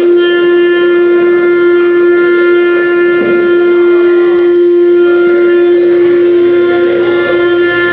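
Wood CNC router spindle running with a steady, loud, high whine, with uneven cutting noise from the bit in the wood beneath it.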